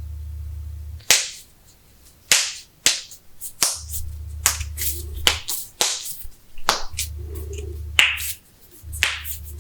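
Sharp cracking pops of joints being cracked: over a dozen separate pops at irregular intervals, some close together. A low hum starts and stops several times beneath them.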